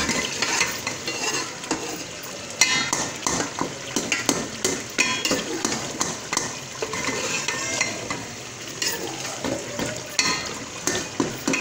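A steel spoon scraping and clinking against a metal pot as minced meat and tomatoes are stirred, with irregular knocks over a steady sizzle of the masala frying in oil. This is the bhunai stage, where the water is drying off and the oil is rising to the top.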